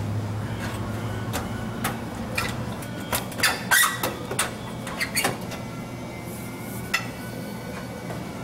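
Clicks, knocks and light rattles of a 2x4 fluorescent troffer being opened up: its lens door and metal housing are handled, over a low steady hum. The knocks come irregularly, thickest in the middle, and die away near the end.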